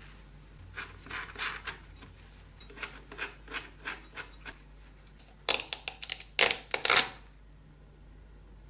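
About a dozen short rubbing or scraping strokes, followed about five and a half seconds in by a cluster of sharp, louder clicks and knocks, as of hard objects being handled and set down.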